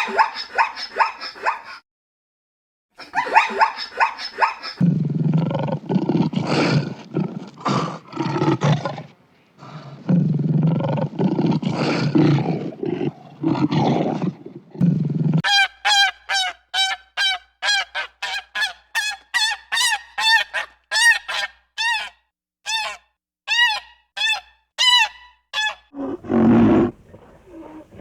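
A run of animal calls. Two long stretches of low, rough calling are followed by a goose honking over and over, about two short honks a second for some ten seconds, and a low rough call near the end.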